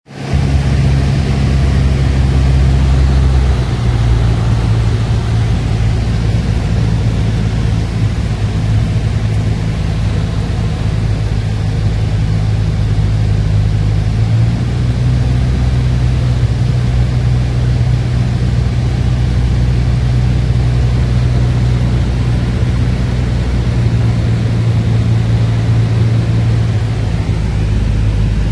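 Piper Warrior's four-cylinder Lycoming engine and propeller droning steadily, heard from inside the cockpit cabin. The low drone shifts in pitch a few times.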